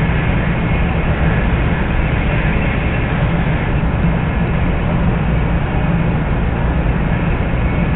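Hikari Shinkansen bullet train running at speed, heard from inside the passenger cabin: a steady low rumble with an even running noise over it.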